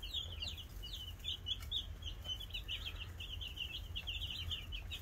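A brood of five-day-old Buff Orpington chicks peeping: many short, high chirps overlapping in a constant chatter.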